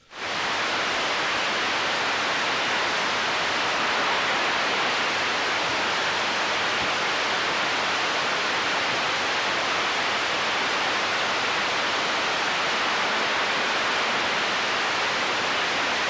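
Steady hiss of static from an AM CB radio receiver on an open, unsquelched channel, coming up suddenly at the start as the other station's carrier drops.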